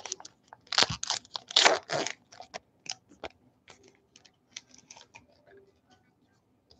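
Wrapper of a baseball card pack torn open and crinkled by hand. It crackles loudly for about a second and a half, then fades into scattered fainter crinkles and ticks.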